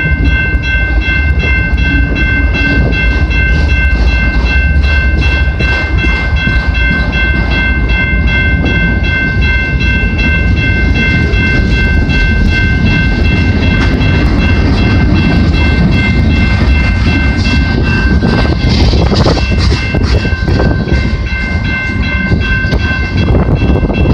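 Canadian Pacific freight train 231 rolling past, its cars' wheels clicking over the rail joints over a steady low rumble. A steady high-pitched ringing tone sounds over it throughout.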